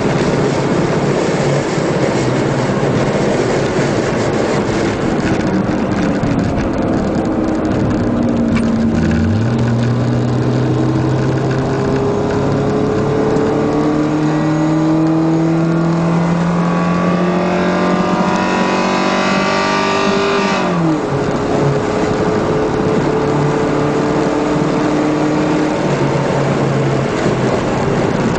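Mitsubishi race car's engine heard from inside the car over wind and road noise. Its revs climb steadily under acceleration for about ten seconds, drop sharply about two-thirds of the way through at a gear change, then pull on at a steadier pitch.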